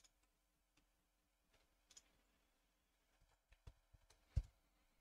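Near silence with a few faint, short clicks from a computer mouse and keyboard being worked, most of them bunched together in the last two seconds.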